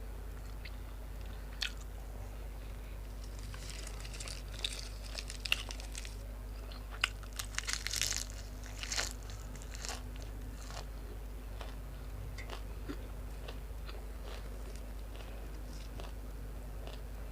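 A person chewing and biting food close to the microphone, with irregular crunches and wet mouth clicks, busiest in the first ten seconds and sparser after.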